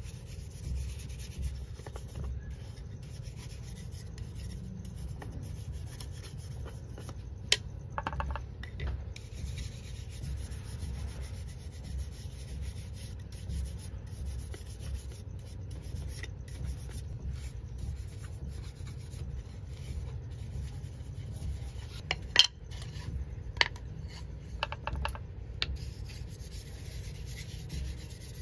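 A wooden spatula rubbed by hand with a small pad, in steady back-and-forth strokes. It is broken by a few sharp knocks, the loudest about 7 seconds in and about 22 seconds in.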